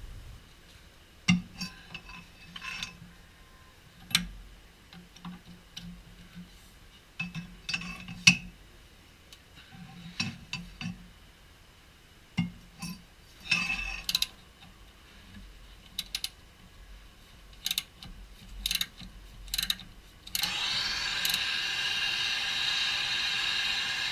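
Hand tools clinking and knocking on metal in irregular single strikes while a rubber bushing is worked out of a rear suspension arm, then a power tool running steadily for about three and a half seconds near the end.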